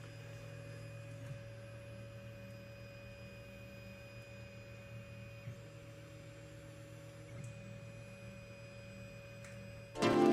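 Faint hum of the Two Trees TTS-55 laser engraver's stepper motors moving the laser head: a few thin whining tones over a low hum, with the tones changing about halfway through and again a little later.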